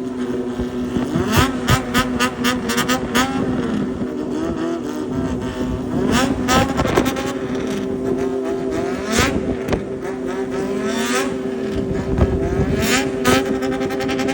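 Kawasaki Zephyr motorcycle's inline-four engine idling, blipped in a fast run of sharp throttle revs about one to three seconds in. After that it gets single quick revs that rise and fall every two to three seconds.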